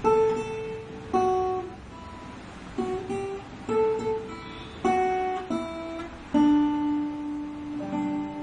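Guitar played slowly as a melody of single plucked notes, roughly one a second, each ringing and fading; about six seconds in, a longer note rings out.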